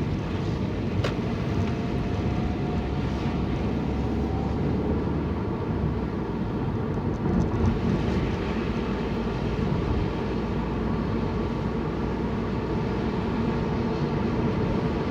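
Steady rumble of road and wind noise while travelling in the rain, with a sharp click about a second in.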